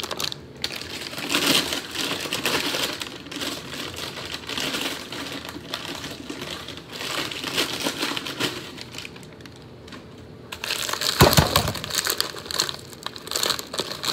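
Plastic bags of frozen vegetables crinkling and rustling as they are handled and emptied, with a single loud thump about eleven seconds in.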